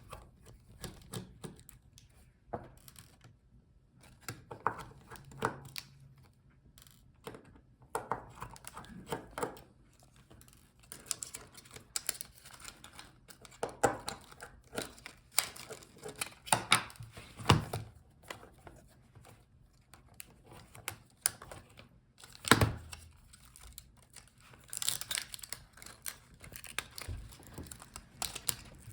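Irregular small clicks, taps and scrapes of hand tools and parts on a laptop's palmrest-keyboard assembly as its touchpad screws are worked out, with a few sharper clicks.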